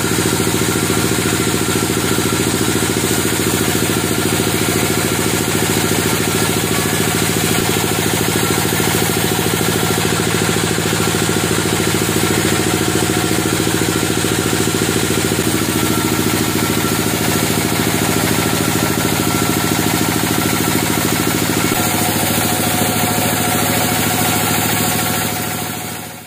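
Homemade band sawmill running steadily as its band blade cuts lengthwise through a large gmelina (white teak) log, its drive making a steady machine hum. The sound fades out right at the end.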